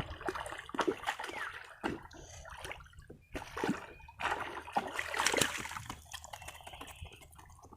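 Water splashing and sloshing in uneven bursts as large baung catfish are lifted out of the water and handled, busiest about four to five seconds in.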